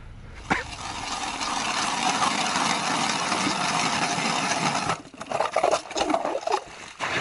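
Ice auger boring a hole through lake ice: a steady scraping grind of the blades cutting ice, turning choppy and uneven about five seconds in as the auger works the cuttings.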